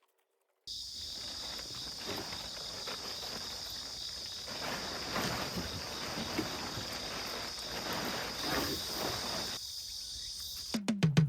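Outdoor insect chorus, a steady high chirring, with soft rustling crackles over it. It cuts off near the end, and electronic music with a heavy beat comes in.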